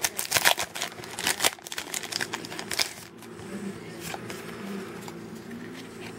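A Yu-Gi-Oh! trading-card booster pack's foil wrapper crinkling and tearing as it is ripped open by hand: dense crackling for about three seconds. After that come fainter rustles and clicks as the cards are pulled out and handled.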